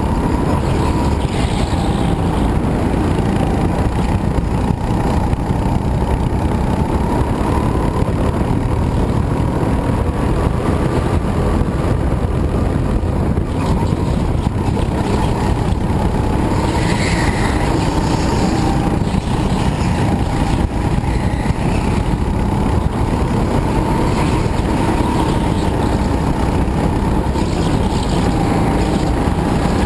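Go-kart engine running hard, heard from onboard the kart, its pitch rising and falling as the kart accelerates and slows through the corners.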